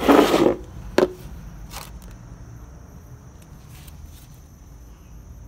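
Unboxing handling noise: a brief rustling scrape of the cardboard box and packaging, then a single sharp click about a second in as a hard part is set down or knocked.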